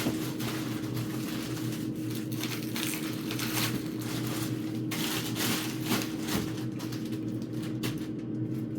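Frozen food packages and plastic bags rustling and clattering as they are handled and moved around, in irregular short bursts over a steady low hum.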